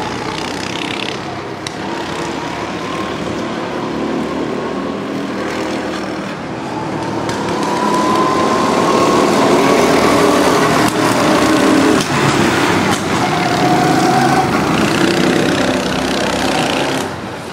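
Go-kart engines running as karts lap the track, a mix of several small engines. From about eight seconds in, one grows louder and rises in pitch as it accelerates.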